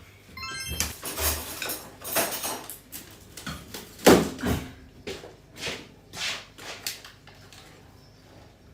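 Kitchen utensils and bowls clattering: an irregular run of knocks, clinks and scrapes of a spoon and dishes as batter is stirred and ingredients are handled, with one sharp knock about four seconds in.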